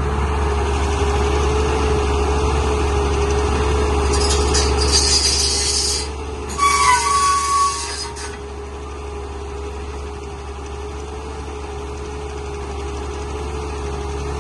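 JCB excavator's diesel engine running with a steady whine over a low rumble. About four seconds in a hissing noise starts, followed by a louder burst with a short high squeal a couple of seconds later.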